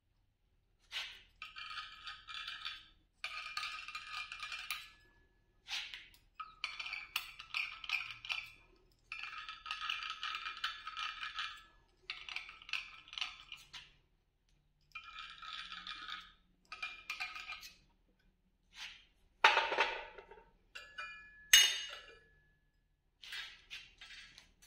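Steel scraping on steel in a run of strokes a second or two long, each with a ringing tone from the steel part: hole positions being marked out on a bearing housing's mounting face. Near the end come two louder sharp metal clunks, the loudest sounds here.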